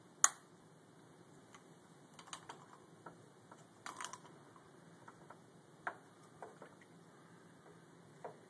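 Scattered light clicks and taps as the end caps are fitted back onto an ACE salt-water spa cell. A single sharp click about a quarter second in is the loudest.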